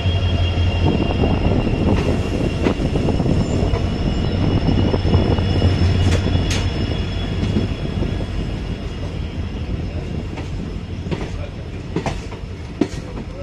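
Passenger train rolling out of a station, heard from an open coach doorway: a steady rumble of wheels on rails with a faint high whine from the wheels, and a handful of sharp clacks as the wheels cross rail joints and points. The noise eases off somewhat in the second half.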